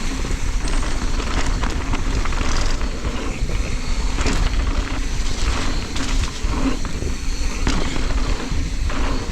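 Wind buffeting a GoPro's microphone as a mountain bike rides a dirt jump line, a constant low rumble with the bike rattling and knocking in scattered sharp cracks.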